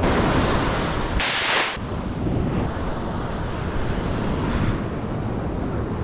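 Ocean surf breaking and washing up the beach, with wind buffeting the microphone; a short, sharper hiss about a second in.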